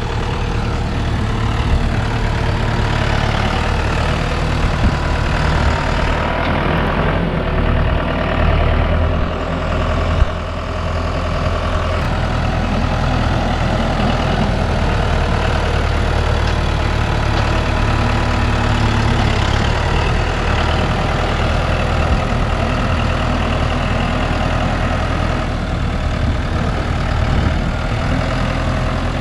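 A farm vehicle's engine running steadily at low revs, close by, with a single sharp click about ten seconds in.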